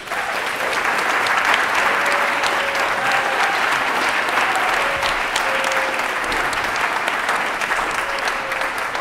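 Audience applauding: dense, steady clapping that starts abruptly and holds.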